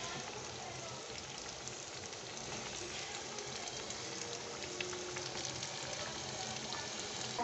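Chicken samosas deep-frying in hot oil: a steady crackling sizzle.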